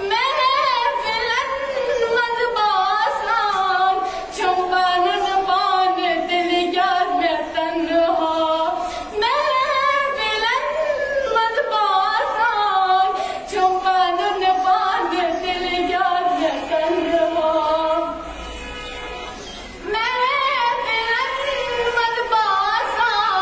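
A schoolgirl singing without accompaniment, holding long, wavering notes that slide between pitches. The singing eases off into a short pause about three-quarters of the way through, then resumes.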